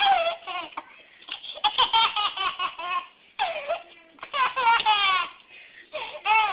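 A baby laughing in about five bursts of high-pitched, hiccupping giggles with short pauses between them.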